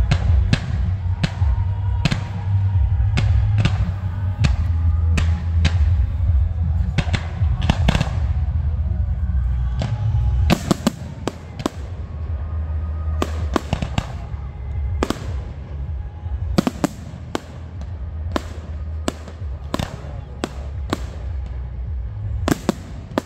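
Fireworks display: a rapid run of sharp bangs and crackles from rockets and shells going off, over loud bass-heavy music. About ten seconds in the music drops back and the bangs come through sharper and more spaced out.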